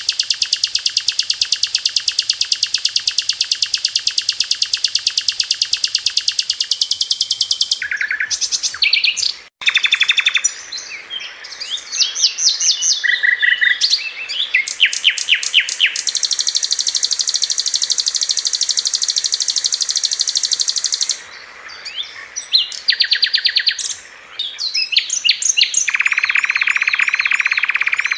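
Recorded songbird songs spliced one after another, as on a masteran tape for training a white-rumped shama. A long, very fast buzzing trill gives way to runs of sharp chirps and whistled notes, then another long fast trill, and a lower trill near the end. Each song breaks off abruptly into the next.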